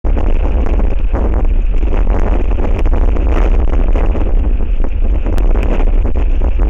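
Strong wind buffeting an outdoor microphone: a loud, steady low rumble with a noisy hiss above it.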